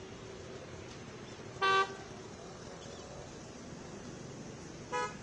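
A vehicle horn sounds twice: a loud short honk about a second and a half in, and a shorter one near the end. Steady outdoor traffic hum runs underneath.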